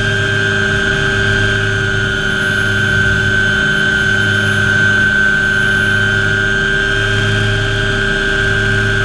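MD500 helicopter's Allison 250 turboshaft engine and main rotor heard from inside the cockpit in flight: a steady high turbine whine over the drone of the rotor.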